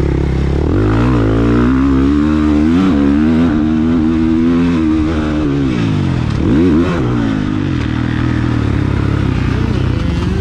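450cc four-stroke motocross bike engine being ridden hard, revs climbing and falling with each throttle change. About six and a half seconds in, the revs drop sharply and then pick straight back up.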